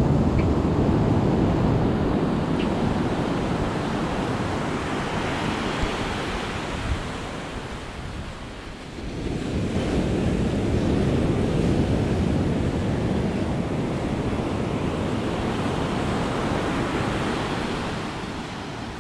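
Pacific surf breaking and washing up a sand beach, surging and ebbing: a lull about eight seconds in, then the next wave builds again.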